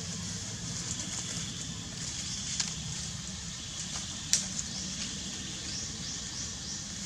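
Outdoor background: a steady low hum and a high hiss, with a few sharp clicks, the loudest a little past four seconds in.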